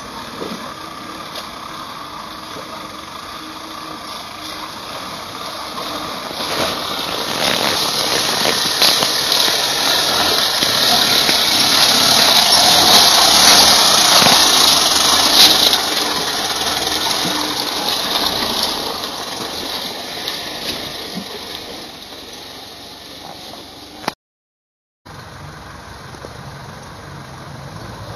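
Toyota Land Cruiser BJ40's four-cylinder diesel engine pulling the truck through a flooded, muddy track, with the tyres splashing and churning through mud and water. It grows louder as the truck passes close by about halfway, with the splashing hiss loudest then, and fades after. Near the end the sound drops out for about a second.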